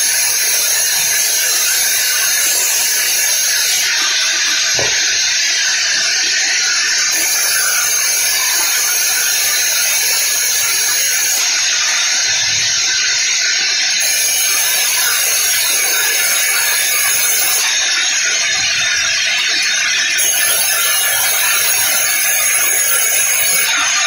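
Large vertical band saw running and ripping teak planks lengthwise, a loud steady hiss of the blade cutting through the wood.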